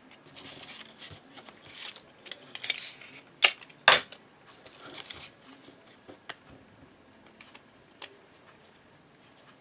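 Paper pieces and tape being handled at close range: light rustling and small clicks, with two sharper snaps about three and a half and four seconds in.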